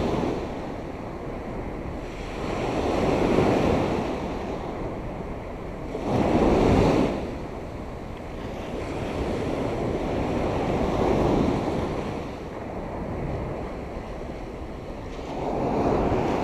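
Small surf breaking and washing up a sandy beach, swelling and fading every few seconds, with wind buffeting the microphone.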